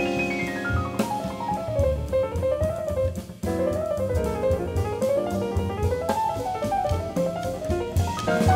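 Jazz piano trio of piano, upright double bass and drum kit playing. The piano plays a fast run of notes sweeping down, then quick runs that rise and fall, over walking bass notes and cymbals. A brief break comes about three seconds in.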